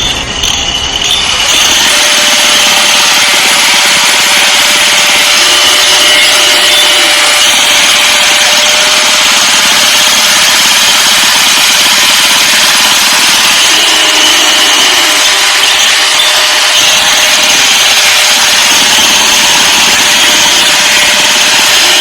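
Loud, steady, high-pitched hissing noise of road-construction machinery, with a faint steady hum in it. Just before it sets in, about a second and a half in, a low engine sound fades out.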